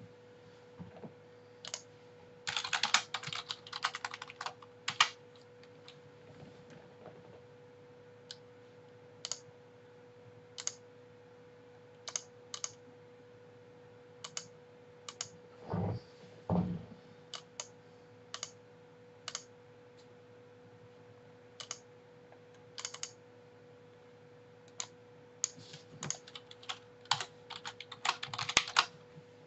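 Computer keyboard being typed on in quick bursts near the start and again near the end, with scattered single key clicks in between. Two duller knocks come about halfway through, over a faint steady hum.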